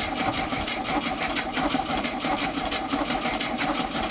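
Air-cooled VW Beetle flat-four engine idling with a rapid, even patter of firing pulses. The engine was only coaxed into starting, and the owner says it won't hold an idle for long.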